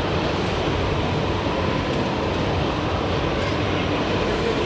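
Steady background din of a busy exhibition hall: a constant wash of crowd chatter and hall noise, with no single sound standing out.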